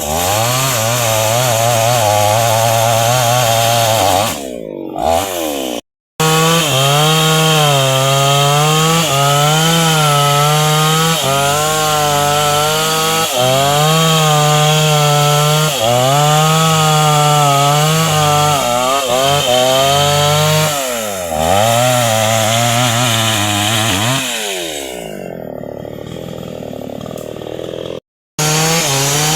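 Chainsaw engine at high revs cutting into a dense hardwood trunk, its pitch sagging and recovering again and again as the chain bites under load. It eases off to a lower, rougher speed a few times, most clearly in the last few seconds, and the sound cuts out abruptly twice.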